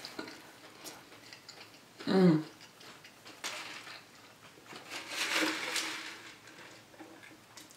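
A person eating stir fry: chewing and mouth sounds with small clicks, and a brief falling 'mm' about two seconds in.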